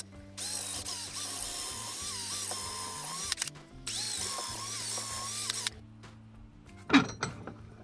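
Cordless drill boring through a hardwood handle, the motor whining under load with a slightly wavering pitch. It pauses briefly about three and a half seconds in and stops for good nearly six seconds in. One short loud sound comes near the end.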